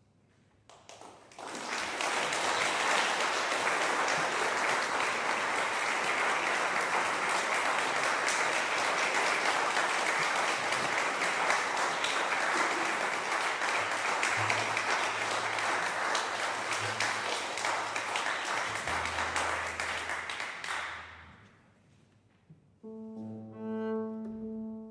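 Audience applauding steadily for about twenty seconds, then dying away. Near the end a bowed double bass starts playing, with piano accompaniment.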